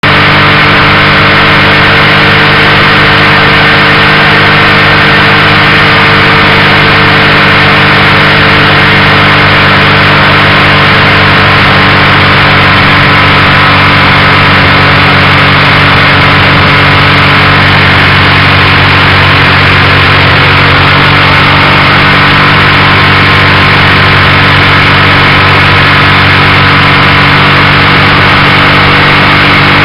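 Motorcycle engine running at a steady cruising speed, its drone holding one pitch throughout, with a constant rush of wind and road noise over it.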